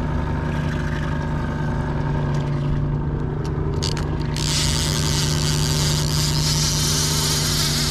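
Boat outboard motor running steadily at trolling speed, a low, even hum. A few light clicks come a little before the middle, and a loud hiss cuts in suddenly about halfway through and stays on over the hum.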